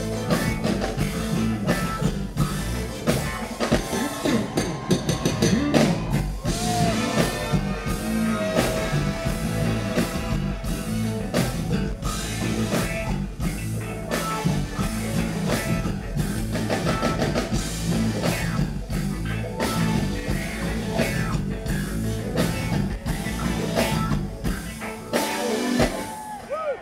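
Live funk band playing, heard from the crowd: drum kit beat, electric bass, guitars and keyboards, with some singing. Near the end the bass and drums drop out briefly.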